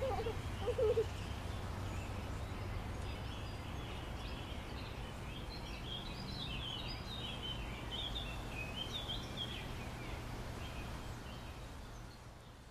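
Outdoor ambience: a steady low background rumble with small birds chirping. Two short low-pitched sounds about a second apart near the start are the loudest thing, and the ambience fades out near the end.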